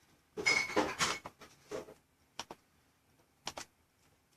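A short rustle of handling noise, followed by a few separate sharp clicks.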